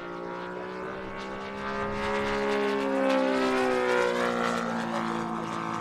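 Saito FG-90R3 three-cylinder four-stroke radial on a giant-scale RC Ki-43 Oscar, running steadily as the model flies past. Its pitch rises and then falls, and it is loudest about three seconds in.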